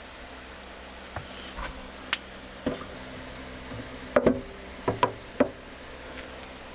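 Irregular knocks and clicks, with a cluster of sharp, loud ones about four seconds in and three more a second later, over a steady low hum.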